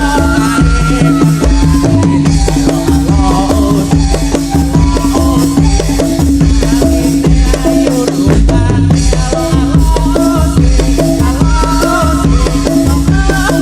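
Live Topeng Ireng music: dense, driving drumming with a steady low drone and a wavering melody line over it, mixed with the rattling jingle of the dancers' ankle bells.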